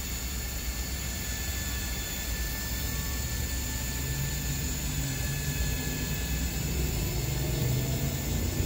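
Electric patio awning on an Airstream travel trailer extending, a steady low motor whir and rumble.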